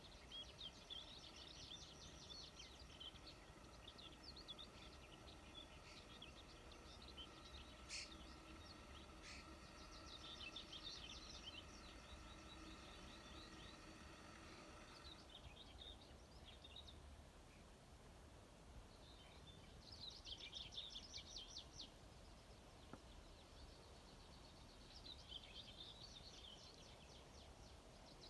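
Faint songbirds singing: bursts of quick, high chirping phrases every few seconds over a low background hiss, with a faint steady hum that stops about halfway through.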